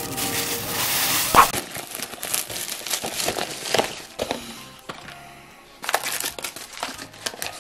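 Music for about the first second and a half. Then plastic crinkling and clicks as the plastic lid comes off an instant tteokbokki cup and the sauce sachets are pulled out of it.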